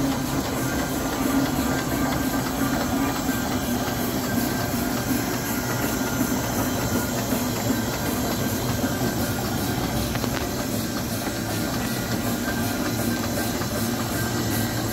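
A 30-ton railway steam crane hissing steadily as steam escapes from it, with a low steady rumble of rail wheels as it travels slowly along the track.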